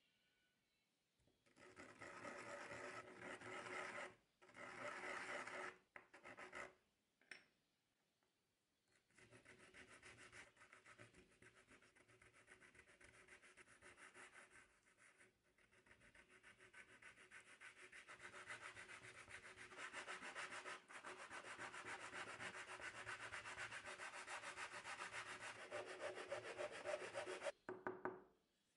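Thin cedar strips rubbed back and forth by hand on a sheet of medium-grit sandpaper, a quick, even scraping. It comes in a few short bouts at first, then runs steadily for most of the rest, stopping shortly before the end.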